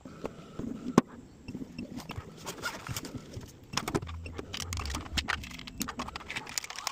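Irregular sharp clicks and knocks of small hard objects being handled, with one loud click about a second in.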